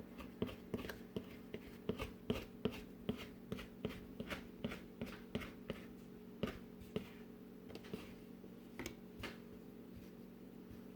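Light clicks and taps from hands pressing and sealing the edges of filled dough, about two or three a second at first and sparser later, over a steady low hum.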